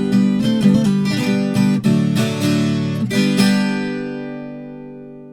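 Viola caipira playing the closing bars of a caipira song: quick plucked notes and strummed chords for about three and a half seconds, then a final chord left ringing and fading out.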